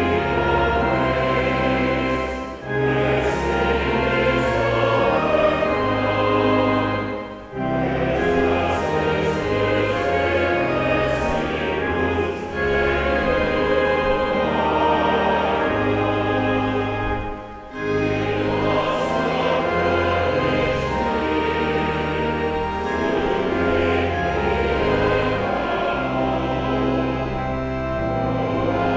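Congregation and choir singing a hymn together over instrumental accompaniment that holds low sustained notes, with short breaks between the lines.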